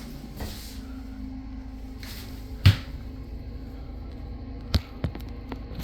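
A few sharp knocks or clunks, the loudest about halfway through and two lighter ones near the end, over a steady low hum.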